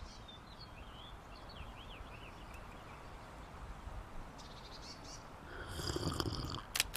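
Birds chirping over a steady outdoor hiss. About five seconds in a louder call rises and then fades, and near the end there are two sharp clicks.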